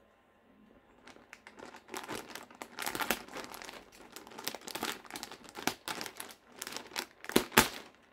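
White plastic poly mailer bag crinkling and crackling in irregular bursts as it is handled and cut open with a box cutter, starting about a second in, with a couple of sharper, louder crackles near the end.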